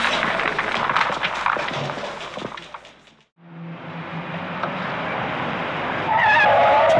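Footsteps clicking along a hallway fade away. After a cut, a car engine runs under road noise, and about six seconds in tyres squeal with a loud, wavering screech as a car brakes hard.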